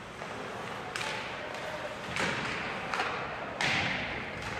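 Ice hockey play: four sudden thuds echoing around the rink, the loudest about three and a half seconds in.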